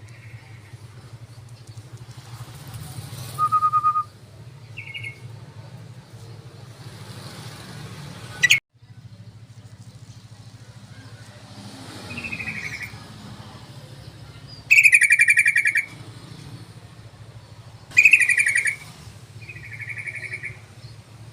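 Yellow-vented bulbul (trucukan) calls: several short, bubbly chattering phrases, the loudest two about 15 and 18 seconds in. A steady low hum runs underneath, and a sharp click with a brief dropout comes about eight and a half seconds in.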